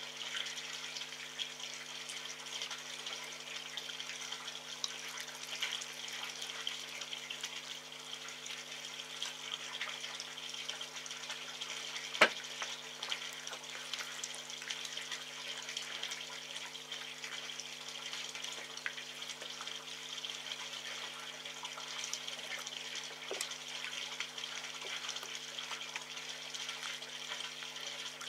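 Red fox chewing and lapping raw meat from a metal tray, with many small wet clicks over a steady hiss and a low hum. One sharp click about twelve seconds in.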